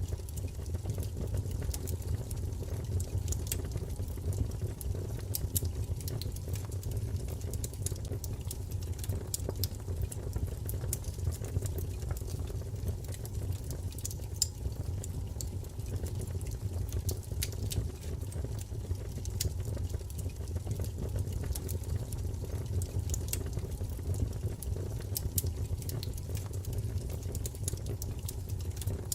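Wood fire burning in a fireplace: a steady low rumble of flames with scattered small crackles and pops throughout.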